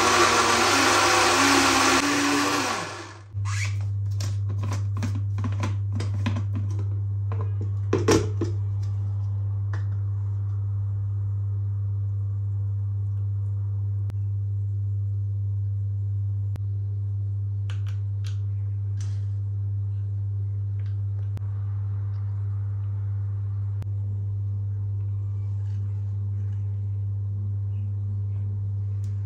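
Blender running at full speed, blending a smoothie, then switching off about three seconds in. After it a steady low hum remains, with a series of clicks and knocks; the loudest is a clatter about eight seconds in.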